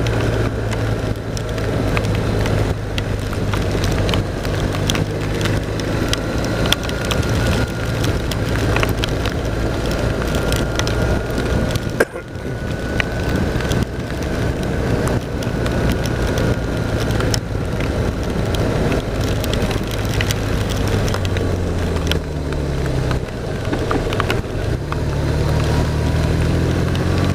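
BMW R1200 RT motorcycle's boxer-twin engine running on the move through heavy rain, with a steady rush of wind and rain and many sharp raindrop clicks and crackles on the microphone. The engine note shifts up and down over the last few seconds.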